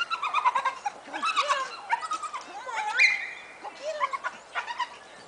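Glen of Imaal Terrier whining and yelping in quick, high-pitched runs at a rat tunnel, excited by the rat quarry. There is one longer, louder whine about three seconds in.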